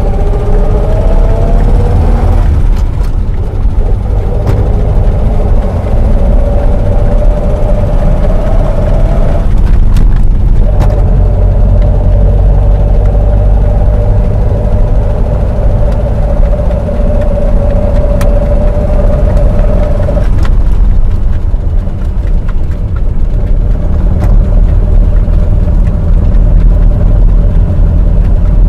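Bus interior while driving: a heavy, steady low engine and road rumble, with a whine that climbs in pitch, breaks off twice and resumes, then stops about twenty seconds in, leaving the rumble. A few sharp rattles or clicks.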